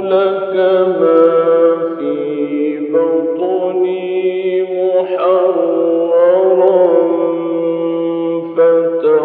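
A male Quran reciter's voice in melodic mujawwad recitation, holding long, ornamented notes with quavering turns. About five seconds in it climbs to a higher held phrase.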